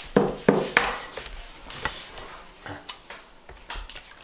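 Hen's eggs being cracked against a bowl: a few sharp taps in the first second, then lighter clicks as the shell is pulled apart.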